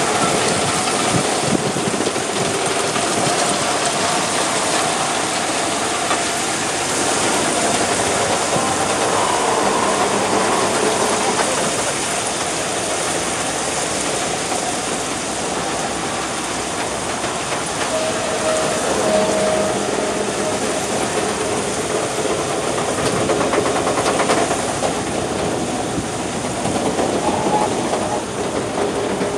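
Railway ballast hopper wagons rolling slowly past on the track. Their wheels on the rails give a steady rushing noise, with short thin squeals about two thirds of the way through.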